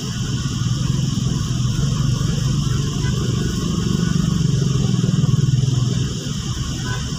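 Vehicle engine hum heard from inside a car driving on a wet road, swelling about a second in and easing near the end, over a steady hiss of tyres and rain.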